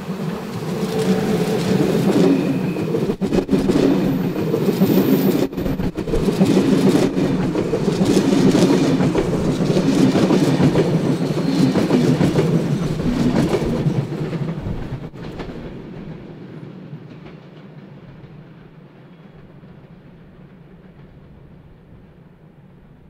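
ÖBB Railjet express train, hauled by an electric locomotive, passing close by: loud steady wheel-on-rail noise with a few sharp clicks. It then fades away gradually after about fourteen seconds.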